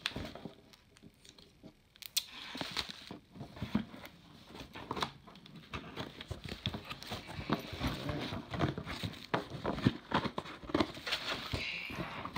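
Irregular rustling, scraping and tearing of a taped cardboard shipping box being pulled open by hand, with sharp crinkles and knocks. It is sparse for the first couple of seconds, then busy and steady.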